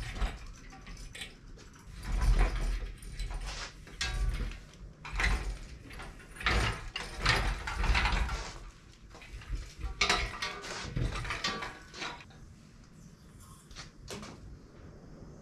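Engine hoist with an engine hanging from it being moved and handled: irregular metallic clanking, rattling and scraping in several bursts, with low thuds. It goes quieter with a few clicks near the end.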